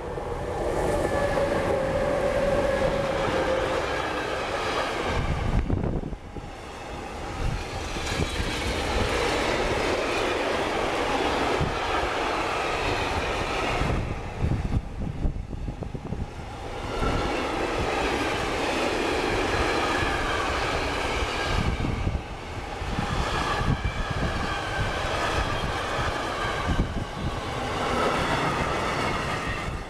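Electric-hauled freight train of trailer-carrying wagons passing close by: continuous rumble and clatter of wheels on the rails, swelling and dipping a few times as the wagons go by. A steady tone is heard in the first few seconds as the locomotive passes.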